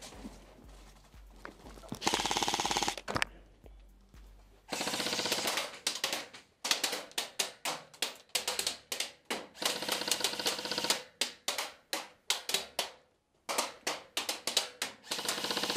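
Airsoft electric guns firing full-auto: one burst about two seconds in, a longer burst a little later, then a string of short, rapid bursts.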